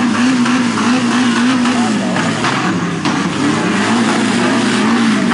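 A small off-road 4x4's engine working through deep mud, its revs wavering up and down repeatedly. The pitch sinks about two seconds in and rises again near the end.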